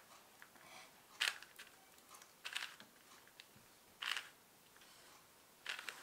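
Plastic 4x4 Rubik's cube being turned by hand: four quick face turns of the R F' U F edge-pairing algorithm. Each turn is a short clicking rattle, and they come about a second and a half apart.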